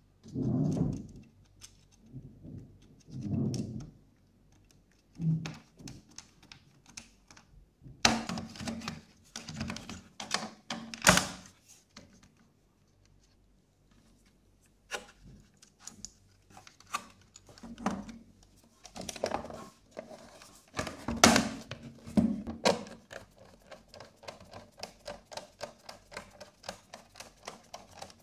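Plastic cabinet parts of a 1979 National mini TV being handled and fitted together: scattered knocks and a few louder thunks, then a run of quick clicks near the end as a screwdriver works a screw into the back cover.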